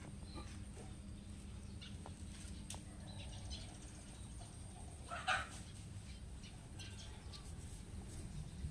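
Quiet handling: fingers stirring and poking ground powder in the steel bowl of an electric nut grinder, with scattered faint clicks over a low steady hum. A brief chirp stands out about five seconds in.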